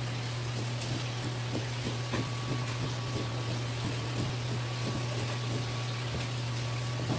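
Steady low hum under an even hiss, with a few faint soft taps.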